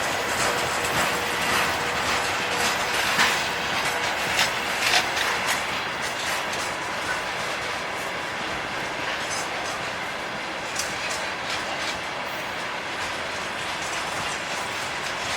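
Freight train wagons rolling past, their wheels clacking over the rail joints with irregular metallic knocks in a steady rumble of running gear.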